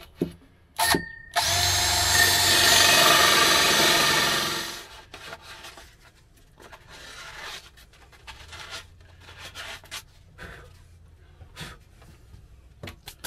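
Cordless drill with a hole saw cutting through a plywood cabinet panel: a short trigger blip about a second in, then about three and a half seconds of loud cutting that winds down as the saw breaks through. Scattered light clicks and knocks follow.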